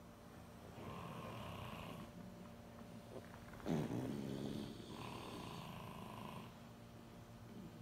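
Sleeping French bulldogs snoring: slow rasping breaths, with one louder, deeper snore a little before the middle.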